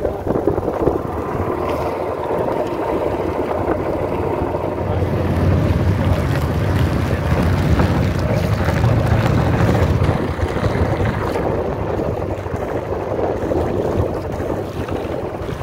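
Small boat under way with its outboard motor running, a steady rumble that grows louder partway through, with wind buffeting the microphone.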